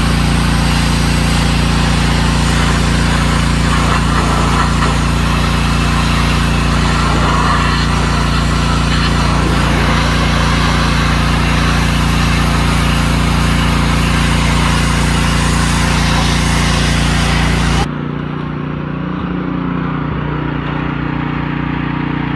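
Pressure washer running steadily, its small engine humming under the hiss of the water spray. Near the end the spray hiss cuts off sharply, leaving a quieter steady hum.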